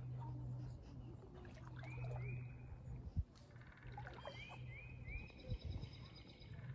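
Faint calls of small pond animals: short arching notes repeated in twos and threes, and a quick trill a little past the middle. A couple of dull knocks sound through it, the sharpest about three seconds in, over a low steady hum.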